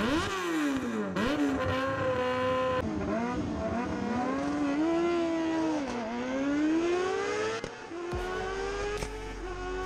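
Sport motorcycle engine revving hard and accelerating through the gears. The pitch climbs, then drops suddenly at each upshift, twice. Near the end it settles into a steadier, slowly rising note with wind rumble underneath.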